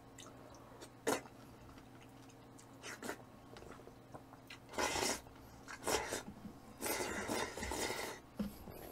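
Eating sounds: chewing mouthfuls of raw bluefin tuna sashimi in several short noisy spells, the longest near the end, with a sharp click of utensils on a dish about a second in.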